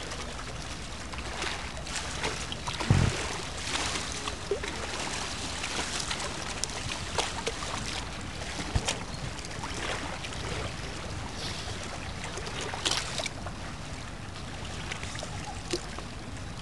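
Lake water lapping and splashing in a steady hiss, with scattered small knocks and one heavy thump about three seconds in.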